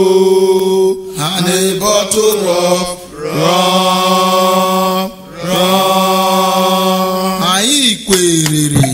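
A man's voice chanting a sea-shanty 'yo-ho' refrain in long drawn-out held notes, four or five in a row, each lasting a second or two with short breaks between.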